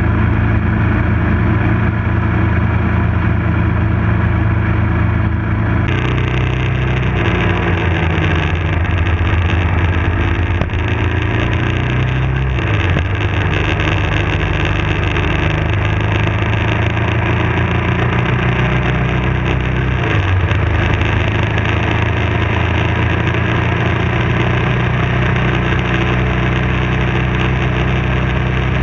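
BMW F650 motorcycle engine running at road speed, with wind noise over the bike-mounted camera. The engine pitch falls and rises a few times as the bike slows and picks up speed through the curves, and the sound changes abruptly about six seconds in.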